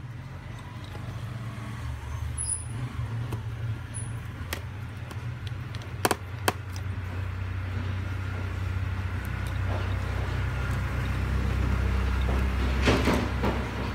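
A steady low rumble that slowly grows louder. About six seconds in come two sharp clicks, half a second apart, as a small precision screwdriver works the screws beside the camera on the Honor 10 Lite's mid-frame.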